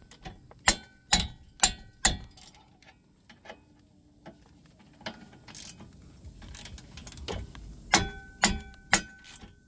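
Hammer blows on a ratchet handle, tightening a brake caliper bracket's bolts: four sharp metallic knocks with a short ring, about half a second apart, then quieter tool handling, then four more knocks near the end.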